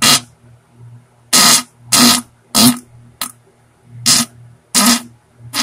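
A string of loud fart sounds: about eight short, noisy bursts at uneven gaps, the last starting near the end and running longer.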